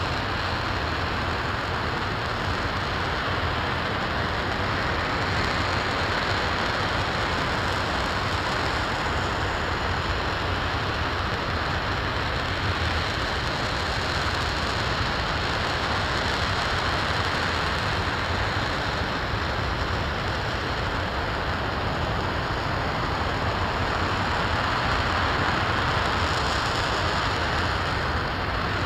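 RS-25 liquid-hydrogen/liquid-oxygen rocket engine firing steadily in a hotfire test: a continuous, even rushing noise that does not change.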